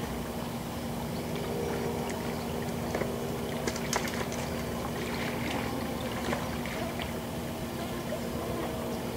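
Calm lakeshore ambience: a steady wash of water noise under a constant low hum, with a few faint clicks about three to four seconds in.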